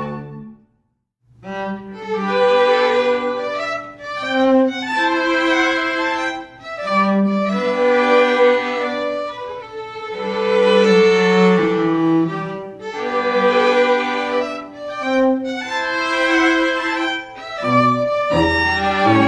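Slow bowed-string music, violin and cello playing phrases of long held notes. It starts after a short silence about a second in.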